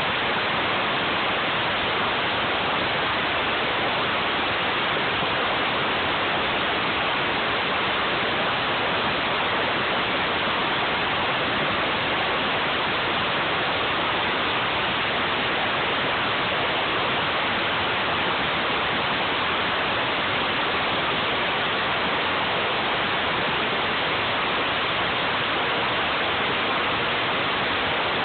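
CNC router cutting, a steady, even rushing noise with no changes.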